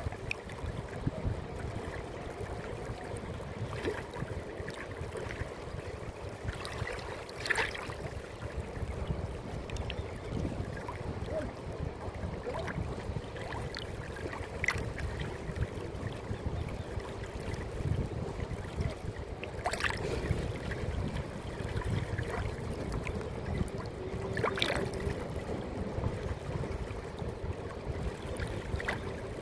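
Steady rush of flowing water, with a few brief sharper sounds standing out from it.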